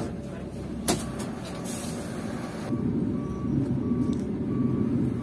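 A bus's reversing beeper sounding about twice a second over its diesel engine running, which grows louder about three seconds in. Two sharp knocks come in the first second.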